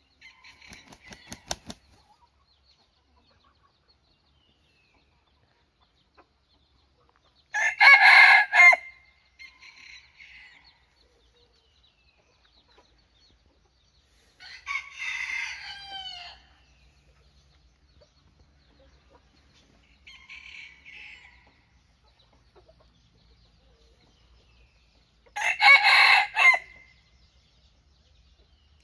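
Red junglefowl-type rooster crowing: three short crows spaced several seconds apart, the first and last loudest, with a few fainter calls between.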